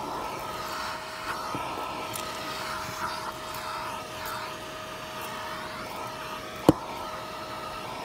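Eureka Mighty Mite canister vacuum running with a steady whine as its nozzle sucks over a carpeted floor mat. A few light taps and one sharp knock come near the end.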